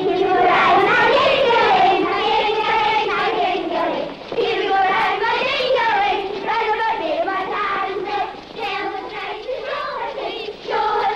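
Children's voices singing a street-game song, with long held notes.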